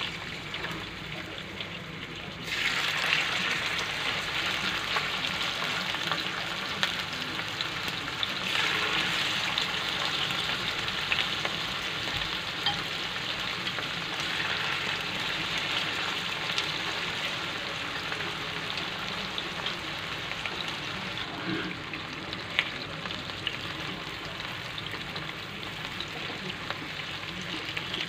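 Marinated pork loin slices sizzling in hot shallow oil in a nonstick frying pan. The sizzle jumps louder about two and a half seconds in as more slices go into the pan, with small scattered pops and clicks.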